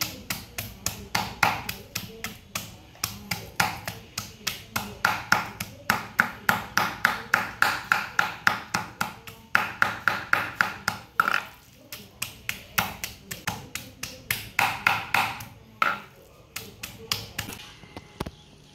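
Cleaver chopping raw pig liver on a thick wooden chopping block: a rapid, even run of knocks, about four to five a second, stopping near the end.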